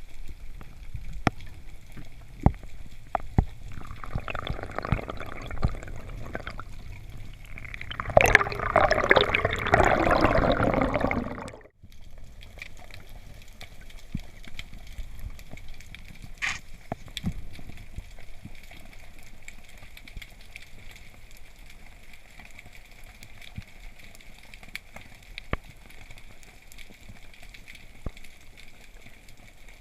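Underwater sound through a camera housing: scattered sharp crackling clicks throughout, with a loud rush of bubbling water from about a third of the way in that cuts off suddenly. After that only the quieter clicks remain.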